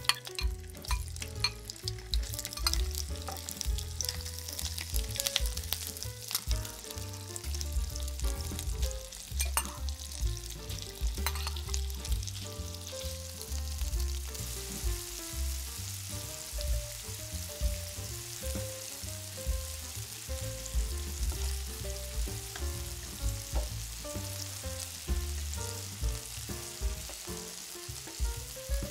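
Raw shrimp sizzling as they sear in hot oil and butter in a nonstick frying pan. Metal spoon and fork click and scrape against the pan as the shrimp are laid in and turned, the clicks thickest in the first dozen seconds.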